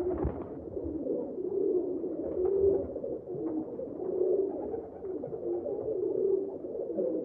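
Pigeons cooing: low, overlapping, wavering coos, with a short thump at the very start.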